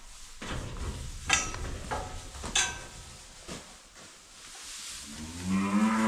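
A cow moos once near the end, a loud call lasting about a second. Before it, two sharp clanks and some rustling in the barn.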